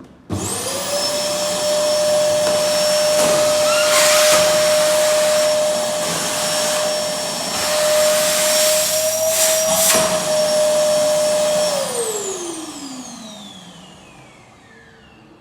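Fantom DC3000 canister vacuum cleaner switched on: the motor spins up at once to a steady high whine with loud rushing air. It runs for about eleven seconds, then is switched off and winds down with a falling pitch.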